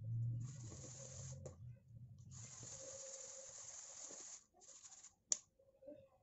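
Rustling, hissing scrape of chicken pieces being tossed by hand in dry seasoned flour in an aluminium pot, in two bursts, the second and longer one about two seconds in, with a low hum under the first second or two. A single sharp tap about five seconds in, as of a metal spoon against the batter bowl.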